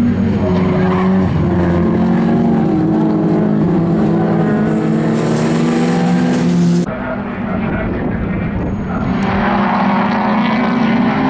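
Several folk-race cars' engines running hard as a pack races past, with tyres skidding on the loose surface. The sound changes abruptly about two-thirds of the way in to a slightly quieter, more distant pack of engines.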